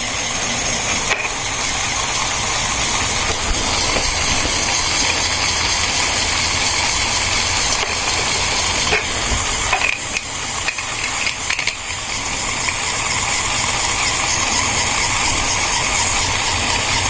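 Lego Technic electric motor driving the pneumatic compressor pump, running steadily with a mechanical whirring clatter that builds up over the first couple of seconds and then holds.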